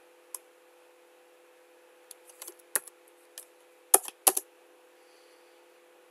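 Computer keyboard keystrokes: a handful of scattered key clicks, the two loudest about four seconds in, over a faint steady hum.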